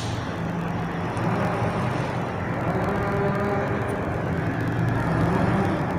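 Steady background hum of a motor vehicle engine, a low drone that wavers slightly in pitch over a noisy rumble.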